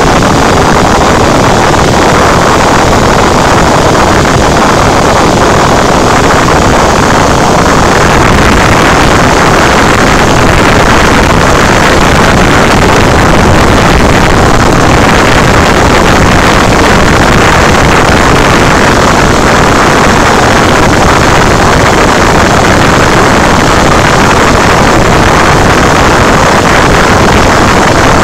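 Cessna 172's piston engine and propeller in cruise flight, heard from inside the cabin: a loud, steady drone that holds even throughout.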